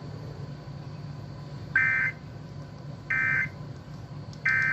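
Emergency Alert System end-of-message signal: three short, buzzy digital data bursts about 1.4 seconds apart, each lasting well under half a second, marking the end of the alert message. A steady low hum runs underneath.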